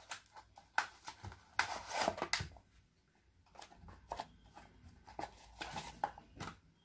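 Cardboard retail box and its white plastic inner tray being handled during unpacking: scattered rustling, scraping and light taps, busiest about two seconds in, with a short lull around three seconds.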